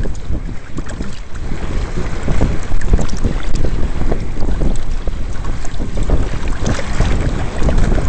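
Wind buffeting the microphone in uneven gusts, over water rushing and slapping against the hull and outriggers of a Hobie Adventure Island sailing kayak driving through 2 to 3 ft chop.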